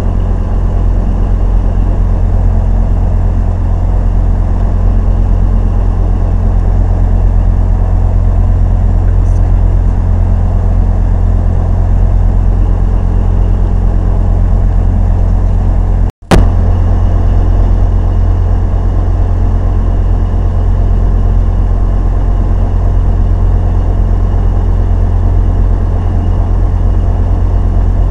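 Cruise boat's engine running with a steady low drone, heard from inside the cabin. The sound cuts out for a split second about halfway through.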